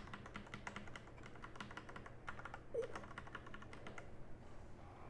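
Typing on a mechanical keyboard: a quick, uneven run of key clicks that thins out and stops about four seconds in.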